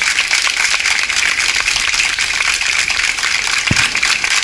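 A crowd clapping: many hands together in a dense, steady clatter that does not let up.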